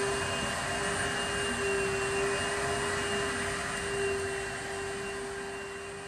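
Steady mechanical drone with a constant mid-pitched hum running under it, cutting off abruptly near the end.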